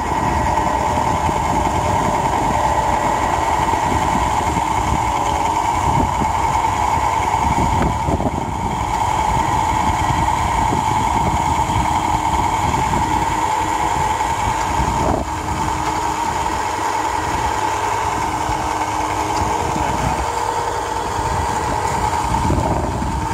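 Electric airless paint sprayer's motor and pump running steadily with a constant hum.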